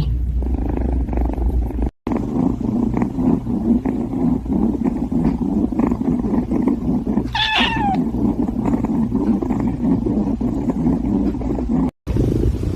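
A cat purring steadily close up, with one short meow that falls in pitch about seven and a half seconds in.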